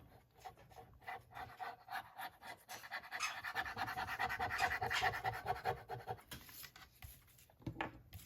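Paper being handled by hand: irregular scratching and crackling as paper flaps are folded and rubbed down onto a glued journal cover.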